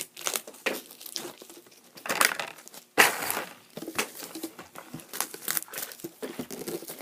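Plastic toy packaging crinkling and crackling as it is handled and unwrapped, in irregular bursts with the loudest around two and three seconds in.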